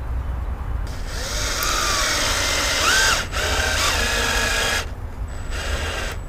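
Cordless drill/driver driving a screw into a light's mounting bracket on a fiberglass boat pulpit. The motor runs for about four seconds with its pitch rising and falling and a brief break midway, then gives one short burst near the end.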